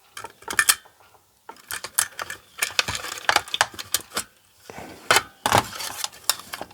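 Irregular clicks, taps and rattles of small plastic parts and wires being handled as a blood pressure monitor is taken apart.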